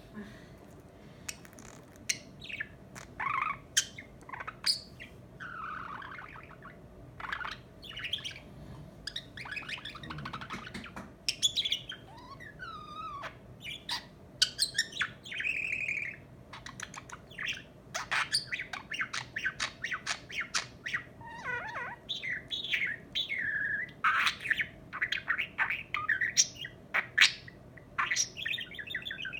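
Pet budgerigar warbling and chattering nonstop: a rapid jumble of chirps, clicks, whistled glides and scratchy squawks.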